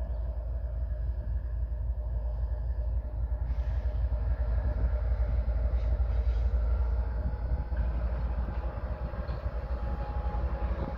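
GE ES44AC diesel locomotive's engine running as it leads a freight train slowly past, a steady low rumble with a hum above it, growing a little louder partway through as it draws nearer.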